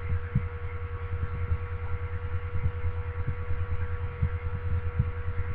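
Steady low electrical hum with a constant higher tone over it, the background noise of the recording setup. A few faint soft knocks.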